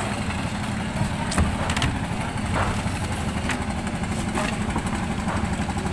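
An engine idling steadily, with a few short knocks and clatters over it.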